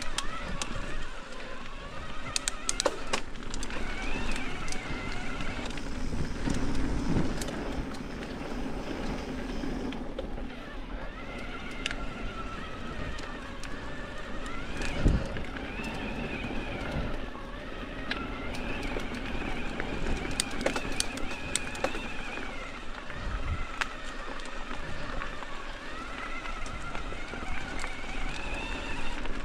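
Mountain bike rolling along a dirt and rock trail: tyres on the ground with a constant rumble, and the bike rattling with many scattered clicks and knocks, one sharper knock about halfway. A high whine wavers up and down in pitch over much of the time.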